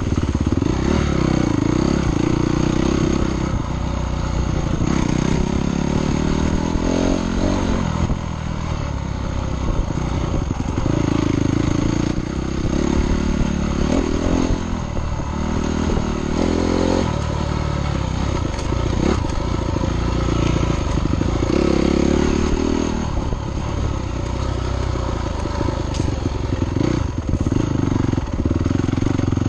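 Dirt bike engine being ridden hard on a trail, the revs climbing and dropping again and again as the throttle is worked and gears change.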